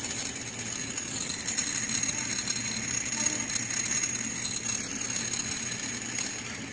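Homemade magnetic stirrer running: three small ball magnets, spun by a magnet on a computer CPU fan, rattle steadily against the bottom of a glass of water over the fan's low hum.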